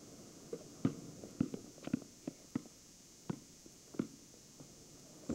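Basketball bouncing on an asphalt driveway: a string of about ten irregular thuds that stops about four seconds in.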